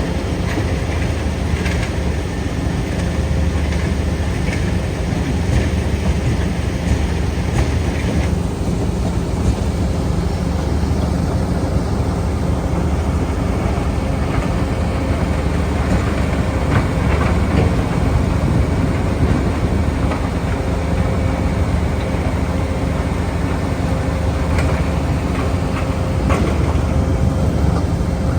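Tracked asphalt crusher running steadily under load, its engine humming with a continuous clatter and rattle of broken asphalt going through.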